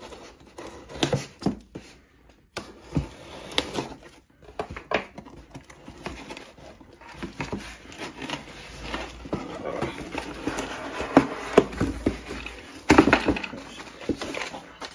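Utility knife slitting the packing tape along a cardboard mailer box, then the cardboard being handled and its lid pried open, heard as irregular scrapes, taps and rustles. They are busiest near the end as the lid comes open.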